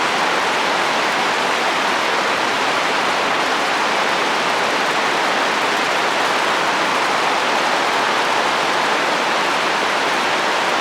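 Steady heavy rain falling on a roof, an even unbroken hiss.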